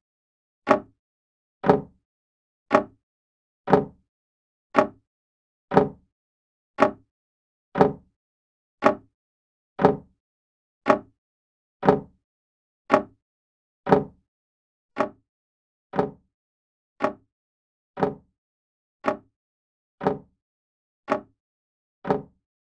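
Old grandfather clock ticking steadily, one sharp tick about every second.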